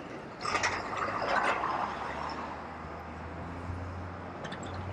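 Box-truck ambulance driving past close by without a siren: a rushing whoosh of its passing from about half a second in, fading by about two seconds, over a steady low drone of traffic.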